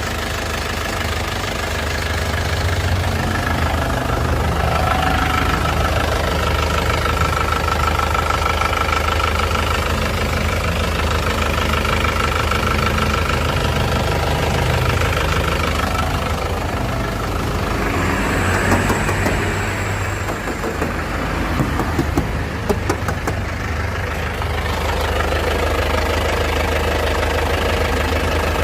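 Isuzu Panther LS Turbo's 2.5-litre turbo-diesel engine idling steadily, with a few sharp clicks about three-quarters of the way through.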